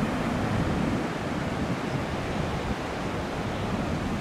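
Ocean surf breaking steadily on a sandy beach, with wind buffeting the microphone.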